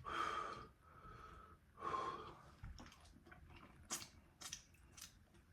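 A man's two wheezy breaths, one at the start and one about two seconds in, then soft chewing and mouth clicks while he eats.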